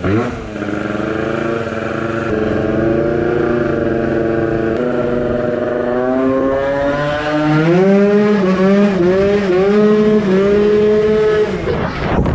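Tuned two-stroke Piaggio NRG MC2 scooter engine with a 70cc kit, running at a steady pitch and then revving higher about halfway through. The revs waver up and down as the throttle is worked, then drop away near the end.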